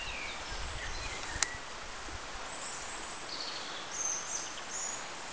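Outdoor ambience: a steady hiss of background noise with a few short, high bird chirps near the end and a single sharp click about one and a half seconds in.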